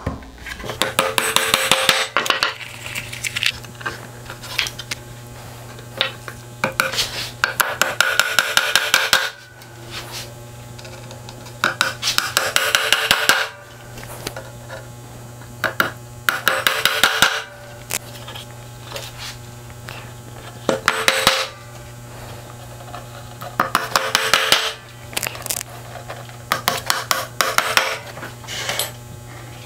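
Claw hammer driving small steel brad nails into the thin wooden side of a box, in runs of quick, light, ringing blows separated by pauses of a few seconds.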